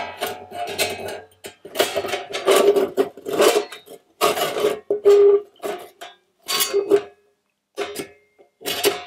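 Metal panels of a Skotti portable gas grill knocking and scraping as they are fitted together, a string of sharp clanks, several of them leaving a short ringing note.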